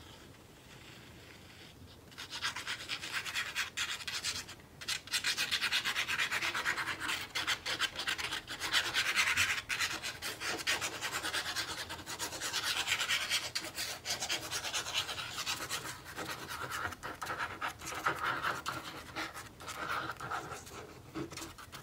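Continuous scratchy rubbing on paper or card stock, made of many quick strokes, starting about two seconds in.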